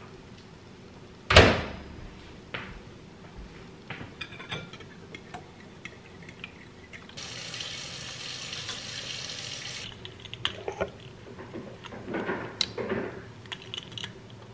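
Kitchen handling sounds while cooking: one sharp, loud clunk about a second and a half in, a steady hiss lasting about three seconds in the middle that starts and stops abruptly, then light clinks of dishes and measuring spoons near the end.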